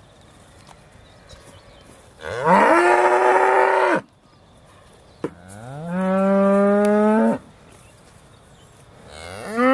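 Aussie Red dairy cows mooing: two long moos of about two seconds each, each rising in pitch and then held steady. A third moo begins right at the end.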